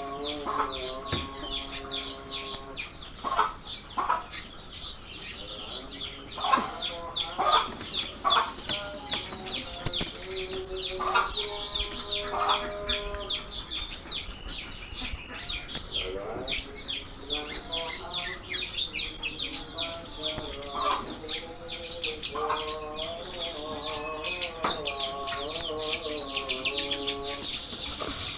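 A konin songbird singing continuously: a fast, varied stream of high chirps and twitters, mixed with lower, drawn-out calls.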